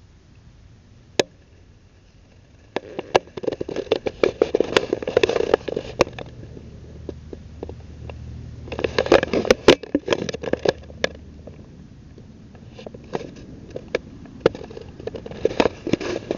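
Cats crunching and rustling in dry grass close to the microphone, heard as bursts of crackling and clicks. The bursts come about three to six seconds in and again about nine to eleven seconds in, with lighter crackles toward the end.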